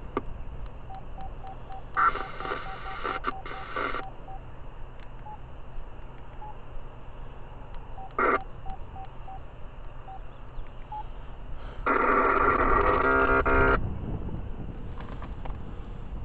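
Radio scanner sounding bursts of electronic signalling tones: a two-second burst, a short blip, then a louder burst near the end. Faint regular beeps are heard between the bursts.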